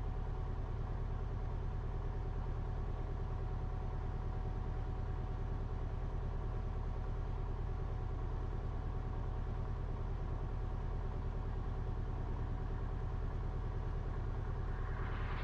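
Cessna 172RG's four-cylinder Lycoming engine idling steadily.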